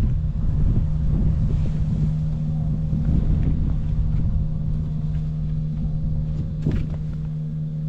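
BMW R1200R's flat-twin boxer engine idling steadily, with no abnormal noise according to the seller. There is a brief tap near the end.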